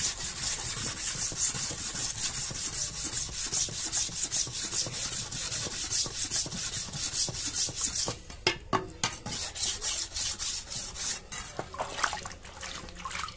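A stone block scrubbed back and forth along a wet spring-steel blade of a date-palm tapping knife, quick rasping strokes about four a second, scouring the blade after its oil quench. After about eight seconds the strokes stop, a few scattered scrapes follow, and water splashes near the end as the stone is dipped in the tub.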